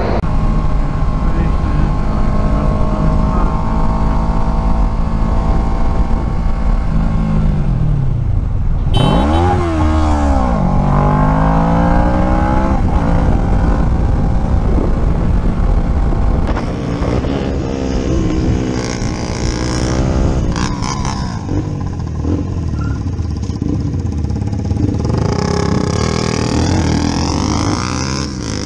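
Motorcycle engines across several riding clips: running steadily at first, then revving, with the engine pitch falling and rising sharply several times.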